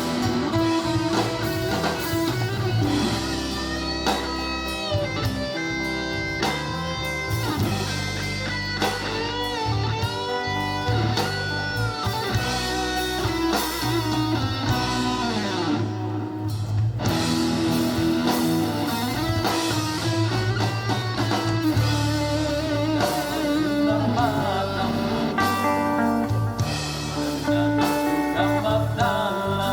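Live band instrumental break: a lead guitar solo with bent, gliding notes over a steady bass line and backing band, with no singing.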